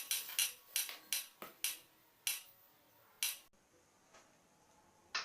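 Spinning roulette wheel ticking as its pointer clicks past the pegs, the ticks slowing and stopping about three seconds in.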